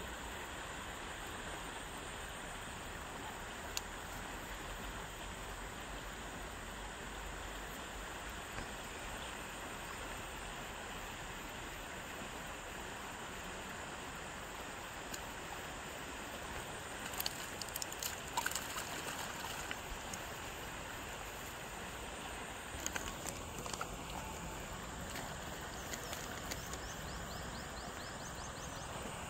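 Steady outdoor background hiss, with a few brief light clicks and rustles partway through and again later on.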